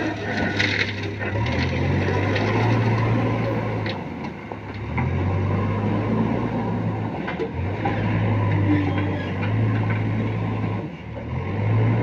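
JCB backhoe loader's diesel engine revving up and down in repeated surges as it works. About a second in, crushed stone pours from the loader bucket into the steel tipper body with a crunching rattle.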